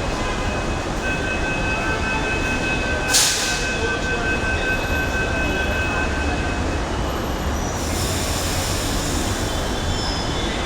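Mumbai Metro train running, with a steady rumble and a high two-tone wheel squeal or whine for a few seconds. A short sharp hiss comes about three seconds in, and a higher hiss starts near the end.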